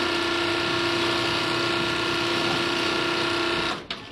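Industrial sewing machine running steadily with a constant whine while sewing a back pocket, then stopping suddenly near the end.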